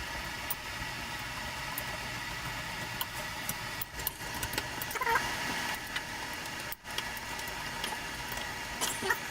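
Small metal shower-trim parts and screws clicking and clinking as they are handled and fitted back in place, with a few brief ringing clinks about five seconds in and near the end, over a steady background hiss.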